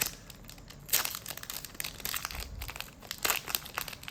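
Foil booster-pack wrapper crinkling as it is handled, in irregular rustles, the loudest about a second in.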